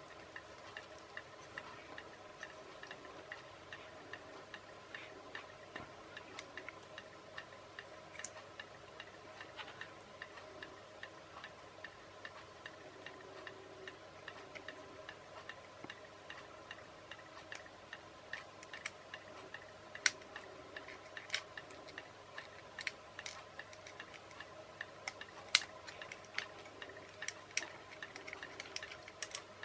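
Small plastic parts of a radio-controlled toy car's steering unit clicking and tapping irregularly as they are handled and pushed back into place, with a few sharper clicks in the last third, over a faint steady hum.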